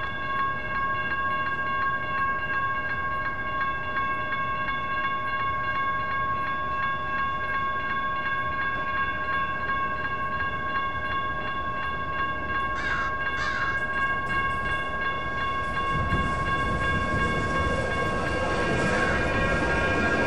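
Railroad crossing's electronic bells ringing continuously as a steady high ringing tone. Two short bird calls about thirteen seconds in. From about sixteen seconds, the rumble of an approaching light rail train grows louder under the bell.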